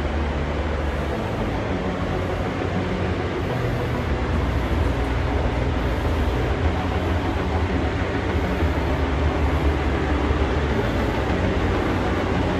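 Steady low rumble and even hiss of a paint booth's ventilation fans running.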